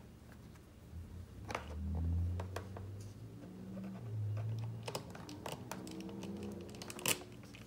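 Light, irregular clicks and taps of a magnetic screwdriver and small bolt hardware being worked at a battery cable terminal.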